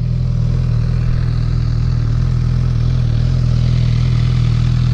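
2018 Honda CB1000R's 998 cc inline-four idling steadily through its stock exhaust, a fairly loud note that the rider reckons is close to the legal inspection noise limit.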